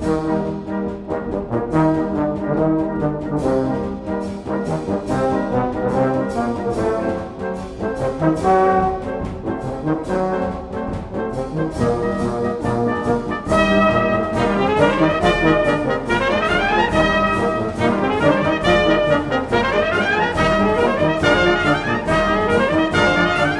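Saxhorn brass band playing a lively piece of music, with rising runs in the upper parts from just past the middle.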